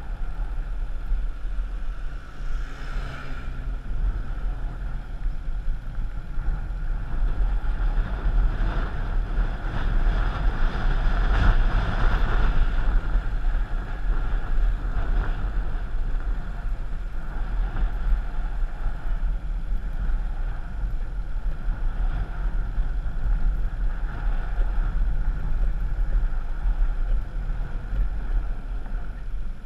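A vehicle on the move: a steady engine drone and road rumble with wind buffeting the microphone, swelling a little about twelve seconds in.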